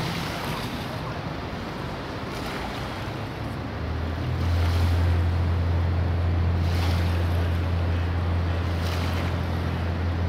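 A harbour ferry's diesel engine passing close, a steady low drone that comes up strongly about four seconds in. Under it is the wash of water from its wake, with wind on the microphone.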